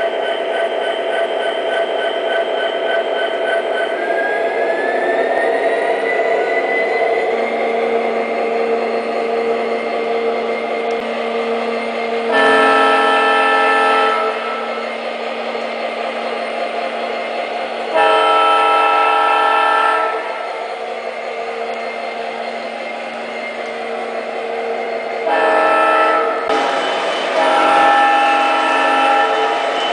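A model locomotive's sound system playing an EMD 710G V16 diesel prime mover, running steadily with a tone that rises in pitch about four to seven seconds in as it throttles up. Over it a multi-chime air horn sounds two long blasts, then a short and a long, the grade-crossing signal.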